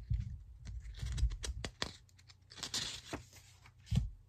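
Paper flash cards being handled and swapped by hand: a run of light clicks and taps, a papery rustle a little under three seconds in, and a soft knock near the end.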